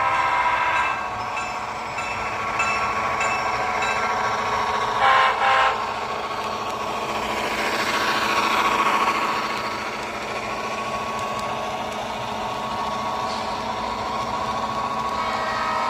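Diesel locomotive horn: a chord fading out about a second in, then two short blasts about five seconds in, over the steady running of the locomotive. The rumble swells around eight to nine seconds as the train passes.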